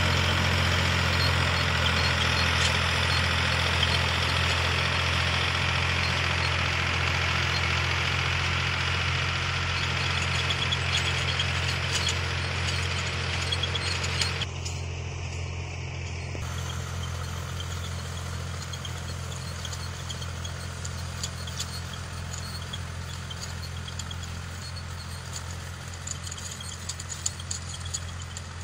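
Preet 4549 tractor's diesel engine running steadily under load while the rear rotavator churns the soil, a dense churning noise over the engine's low drone. About halfway through the sound cuts briefly, then carries on farther off and quieter.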